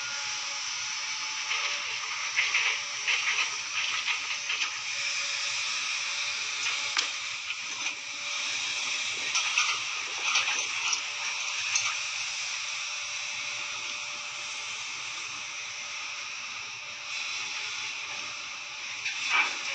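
Long-reach excavator working: a steady hiss of engine and hydraulics with scattered metallic clanks and knocks, bunched at about two to five seconds in and again around ten seconds, with one more near the end.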